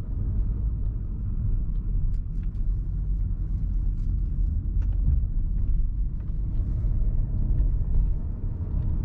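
Cupra Formentor VZ5's 2.5 TFSI five-cylinder engine running with a steady low rumble, with no clear revving.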